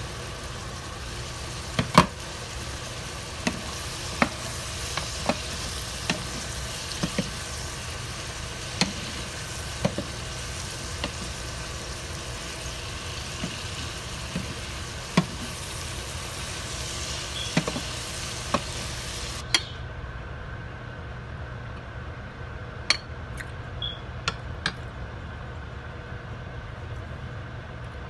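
Beef and vegetables sizzling in a frying pan while a wooden spatula stirs them, tapping against the pan about once a second. About two-thirds of the way in the sizzle cuts off suddenly, leaving a few scattered clicks.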